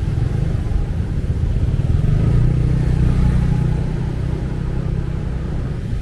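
Motorcycle engine running at low speed in slow, congested traffic, with a steady low hum that swells from about two seconds in, over the rumble of surrounding cars and motorbikes.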